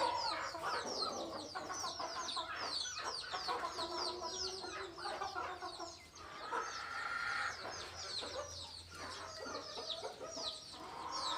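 A brood of chicks peeping rapidly and without pause, many short high peeps falling in pitch, with a mother hen clucking underneath.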